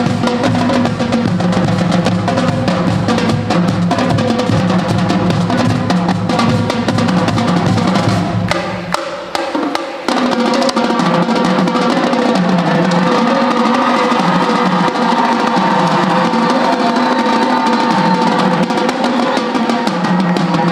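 High school drumline playing a face-off cadence: rapid snare rolls and strokes over pitched tenor and bass drum patterns. About nine seconds in the deep bass-drum low end drops out and the lighter drums carry on.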